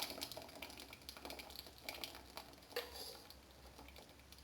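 Faint, irregular light clicks and taps of a kitchen utensil against a pot or bowl while stirring, with a slightly louder tick near the end.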